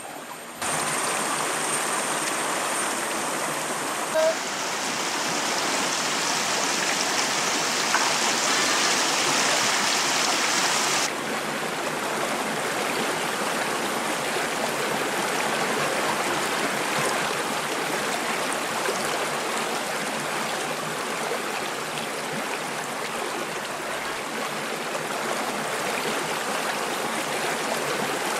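Shallow forest stream flowing over rocks, a steady rushing of water. It sounds brighter and hissier between about four and eleven seconds in, with one brief sharp sound about four seconds in.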